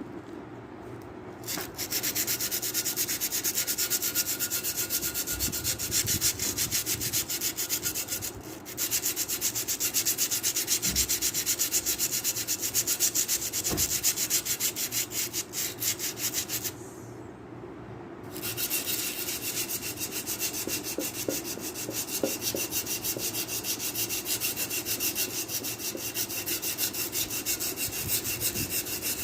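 A plant pot being scrubbed clean by hand with fast, even back-and-forth strokes. The scrubbing breaks off briefly about a third of the way through and again for a second or two about two-thirds of the way through.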